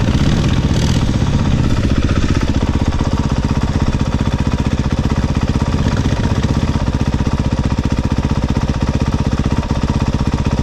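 ATV engine idling close by, a steady rapid pulsing, a little heavier for the first couple of seconds.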